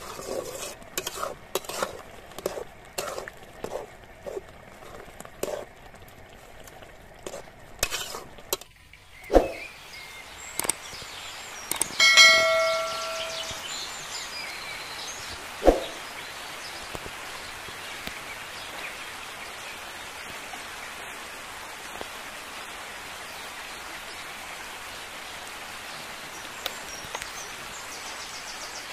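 A metal ladle knocks and scrapes against an aluminium pan while stirring cooked greens, in quick irregular clicks. It stops about nine seconds in. After that come a ringing chime with a sharp click a few seconds later, then a steady even outdoor background noise.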